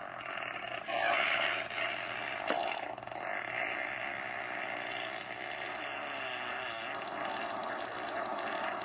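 A long, continuous fart sound effect played from a fart soundboard.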